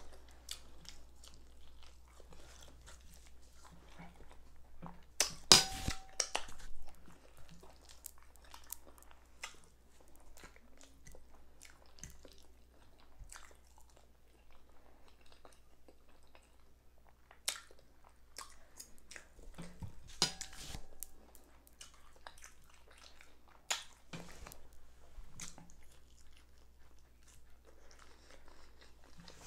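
A person chewing and biting pieces of fried liver, with moist mouth sounds and small clicks throughout. A few louder sharp knocks stand out, the loudest about five and a half seconds in and another about twenty seconds in.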